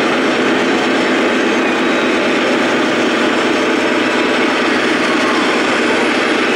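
Steady engine sound of a scale DAF XF 105 radio-controlled truck's electronic sound module, playing a diesel truck engine running. It sounds thin, with little deep bass.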